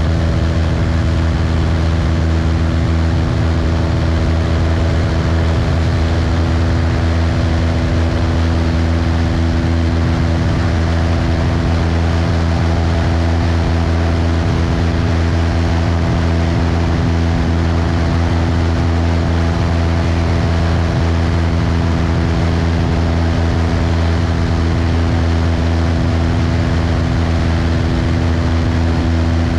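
Cessna 172's piston engine and propeller droning steadily in flight, a deep hum with a few steady tones over it and an even rushing noise.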